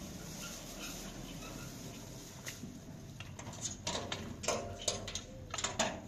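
Puppies squeaking and whimpering in short high cries several times in the second half, mixed with sharp crackles of plastic shopping bags being handled.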